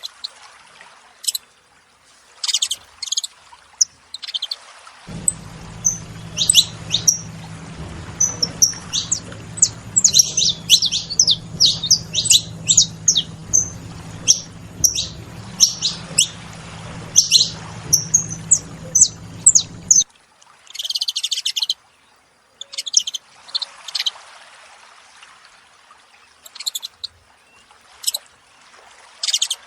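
Saffron finches calling: a flurry of short, sharp, high chirps from several birds. The chirps come thickest through the middle and thin out toward the end.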